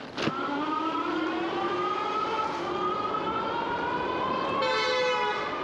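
A car horn honks once, about half a second long, near the end. Under it and before it is a drawn-out whining tone that rises slowly in pitch.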